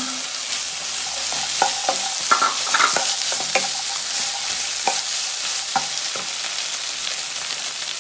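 Onion-tomato masala sizzling steadily in a nonstick pan while green peas are stirred into it with a wooden spatula, which scrapes and taps against the pan several times.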